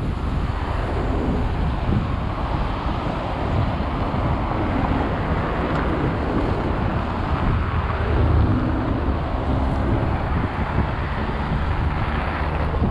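City street traffic: cars and heavier vehicles passing close by with engines running, one passing louder about two-thirds of the way through, over a steady rumble of tyres and wind on the microphone.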